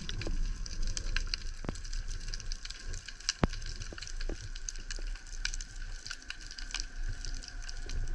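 Underwater ambience on a rocky reef: a continuous crackle of irregular sharp clicks over a low hum, with one louder click about three and a half seconds in.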